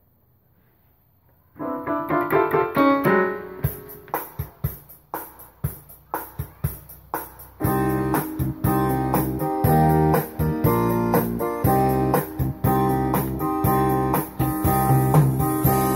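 Yamaha PSR-S900 arranger keyboard playing again after a repair of a fault that left it with no sound. It is silent for the first second and a half, then piano-like chords start, a steady beat joins, and a fuller accompaniment with bass comes in about seven and a half seconds in.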